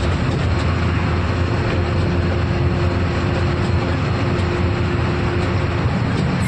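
Truck engine and road noise heard from inside the cab while cruising on a highway: a steady low drone with a rushing haze over it, and a steady higher hum that stops near the end.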